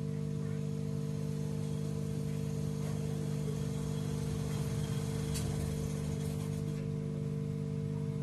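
Steady mechanical or electrical hum made of several low steady tones, with a few faint clicks about five seconds in.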